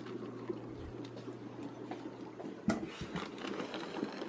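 Faint water sounds from an aquarium over a low steady hum, with a single knock about two and a half seconds in, after which the hum drops away.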